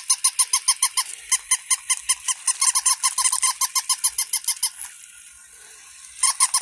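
Electronic toy puppy sounding off in a fast, even run of short high yips, about six or seven a second. It breaks off for about a second near the end, then starts again.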